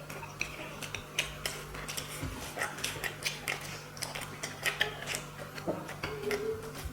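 Close-up eating sounds: wet chewing and lip smacks, several short clicks a second, as a mouthful of rice and fish curry is chewed.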